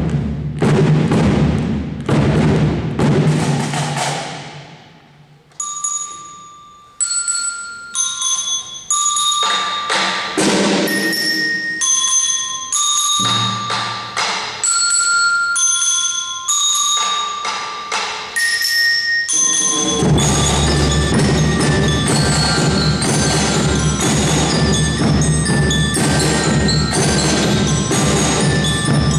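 Marching band of drums and bell lyres (marching glockenspiels). The drumming dies away about four seconds in, the bell lyres then play a melody of single ringing notes, and about twenty seconds in the drums come back in under the bells at full volume.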